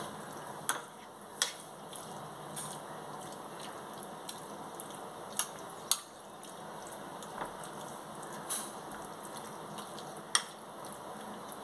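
Raw chicken pieces being stirred and squished through a thick yogurt marinade in a glass baking dish. A few sharp clicks sound against the glass, spread through the mixing, over a steady background hiss.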